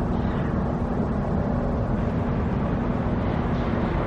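Steady low rumble with a constant hum, as from a nearby engine or machinery running.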